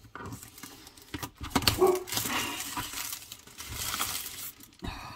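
Clear plastic wrap crinkling and rustling, with a few knocks of the cardboard box, as a boxed diamond painting kit is unwrapped. A short whine is heard about two seconds in.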